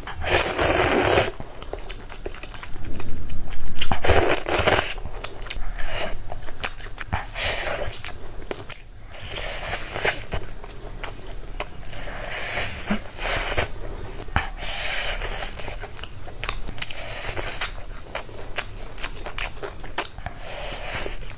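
Close-up eating sounds of spicy ramen noodles: irregular noisy bursts of biting and chewing, the loudest near the start and about four seconds in.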